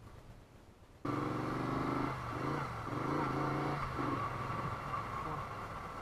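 Moto Guzzi V35's V-twin engine running on the move, cutting in suddenly about a second in after a faint stretch, with a steady low engine note.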